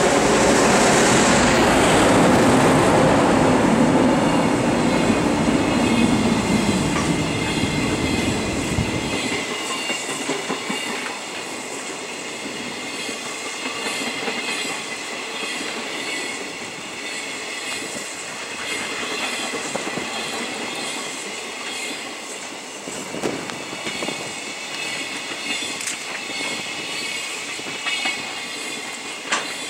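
EF510 electric locomotive passing close by with a deep rumble that dies away about nine seconds in, then a long container freight train rolling past, its wagon wheels clattering over the rail joints under thin, steady high ringing tones.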